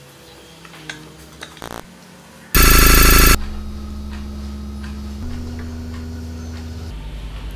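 A loud electric bell rings in one short burst of under a second, about two and a half seconds in. A steady low hum follows and shifts pitch twice.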